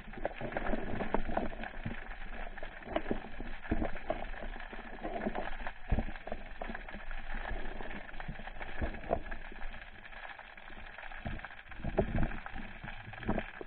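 Underwater sound picked up by a spearfishing camera: irregular muffled knocks and clicks over a steady watery hiss as the speargun and its shooting line are handled. Louder knocks come about six seconds in and again near the end, when the speared fish is on the shaft.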